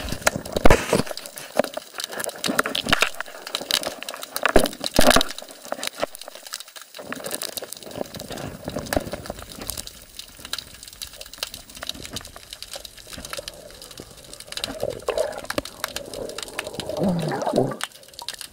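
Water sound picked up by a camera held underwater: a muffled wash of moving water full of clicks and knocks, with a few sharp, loud knocks in the first five seconds as a hand works among the rocks to catch a crab.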